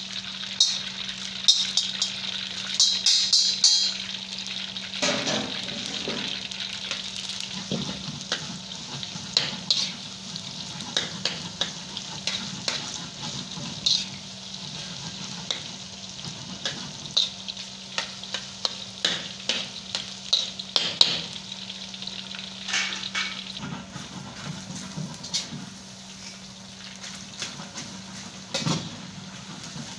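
Batter-coated chicken pieces deep-frying in hot oil in a wok, bubbling and sizzling steadily, with frequent short clinks and scrapes of a metal strainer against the wok. A steady low hum runs underneath.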